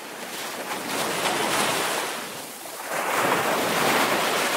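Waves washing in: a rushing hiss that swells twice, once about a second in and again about three seconds in.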